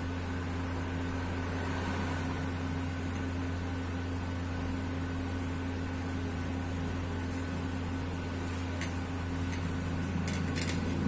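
Steady low mechanical hum with an even hiss, like a motor running, and a few faint soft clicks near the end.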